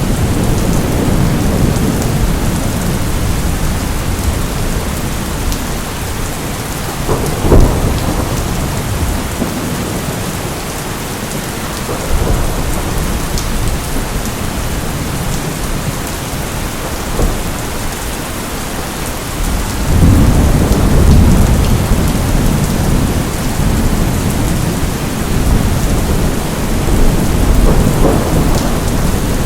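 Steady rain with rolling thunder. A sharp thunderclap about seven seconds in is the loudest moment, and a long low rumble swells about two-thirds of the way through.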